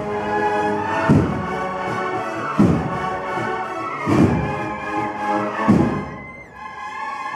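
Brass band playing a slow processional march, sustained brass chords over a heavy drum stroke about every second and a half, softening briefly near the end.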